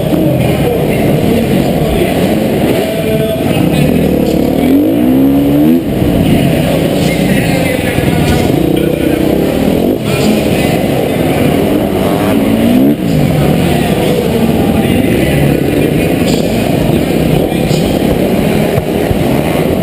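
Motocross bike engine revving hard heard from on board, its pitch climbing in several rising sweeps as the rider accelerates and dropping back as he shuts off between them.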